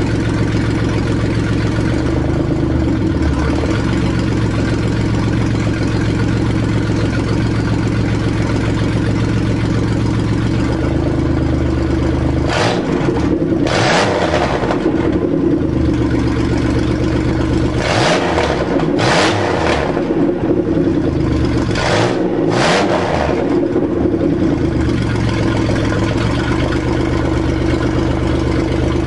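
1999 Buick Century's 3.1-litre V6 running through a straight-piped exhaust with no mufflers, idling steadily and blipped in three pairs of quick revs over the middle stretch.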